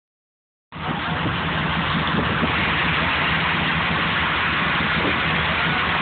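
Boat engine running steadily: a low hum under a constant hiss, cutting in abruptly just under a second in.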